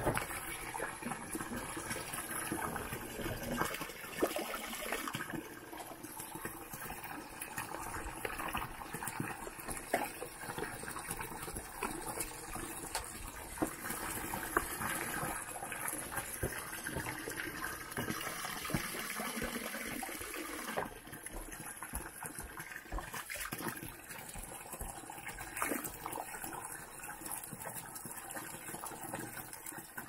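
Spring water pouring steadily from a pipe and splashing onto rocks.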